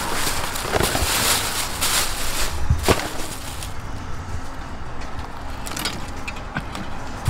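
Clear plastic bag crinkling as it is handled, with a cluster of sharp crackles in the first few seconds, then quieter with a few scattered light clicks and knocks of wooden skewers and utensils.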